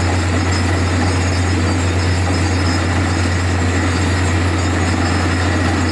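Truck-mounted DTH (down-the-hole hammer) borewell drilling rig running while drilling: a loud, steady deep drone from the rig's engine and air compressor, with a hissing rush of air blowing cuttings and dust out of the borehole.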